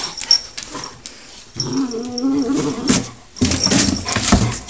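Domestic cat growling over a mouse it has caught: guarding its prey. About one and a half seconds in comes a low, wavering growl lasting over a second, and near the end a louder, noisier stretch of growling.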